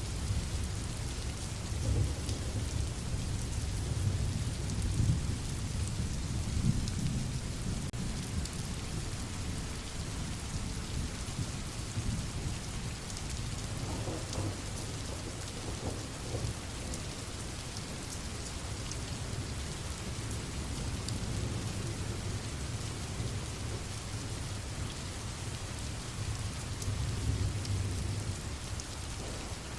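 Steady rain falling with a fine patter of drops, and low thunder rumbling in the first several seconds and again near the end.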